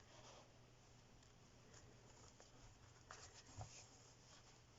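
Near silence, with faint rustling and a few soft ticks from hands working a yarn needle through a crocheted doll.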